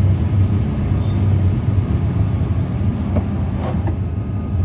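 Steady low hum inside the cabin of a Wuling Almaz Hybrid on the move, while its power sunroof closes on a voice command.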